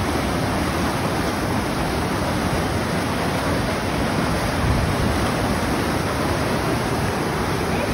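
Waterfall pouring over a rock ledge into a gorge, a steady, even rush of falling water.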